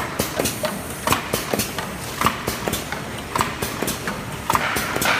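Automatic cartoning and packing machine running, its mechanism clacking in a steady rhythm: a sharper clack about once a second with lighter clicks between. A hiss rises near the end.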